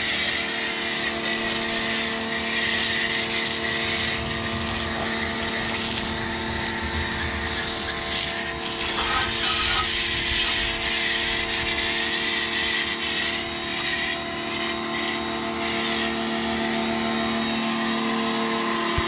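Small electric pressure washer's motor and pump running steadily, with the hiss of a foam cannon spraying soap. Right at the end the motor starts to wind down, its pitch falling.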